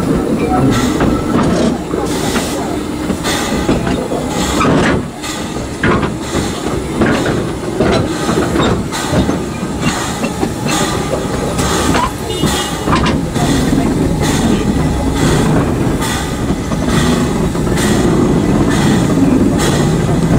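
A 2 ft 3 in narrow-gauge train of the Corris Railway running along the line, its wheels clicking over the rail joints. Brief wheel squeals come twice, about a third and about two-thirds of the way through.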